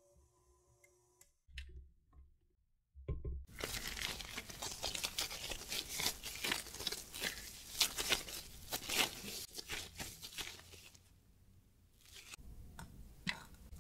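A stand mixer's steady hum cuts off about a second in. Then soft, sticky whole-wheat bread dough is pulled, stretched and folded by gloved hands for about eight seconds, a dense crackly run of small tearing and squelching sounds, ending in a few light taps.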